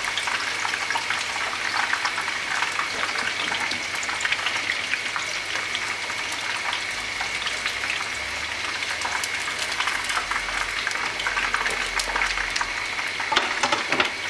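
Hot oil sizzling and crackling steadily as battered chicken pieces deep-fry in a wok, with a few sharper crackles near the end.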